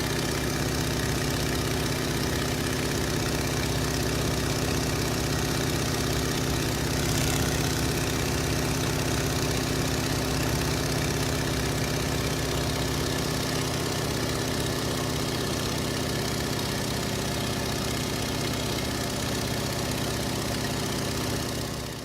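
Biplane's piston engine running steadily at an even speed, its pitch holding constant, then dropping away at the very end.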